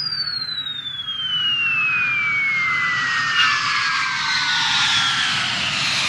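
Recorded jet aircraft flyby effect: a high engine whistle falls steadily in pitch as the rushing roar builds. A deeper roar comes in near the end as the aircraft passes.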